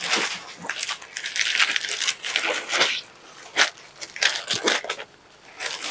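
Crinkly rustling of a set of packed cotton sarees being handled and laid out, in irregular bursts with a couple of short pauses.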